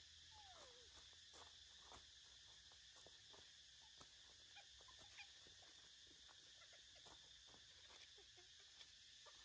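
Faint crackle of dry leaves under a baby macaque's small steps, with one short falling squeak near the start, over a steady faint hiss.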